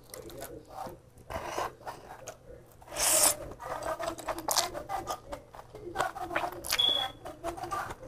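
Close-miked eating by hand: fingers scraping fried glass noodles and rice on a plate, with chewing and lip smacks, and a loud hissing slurp about three seconds in.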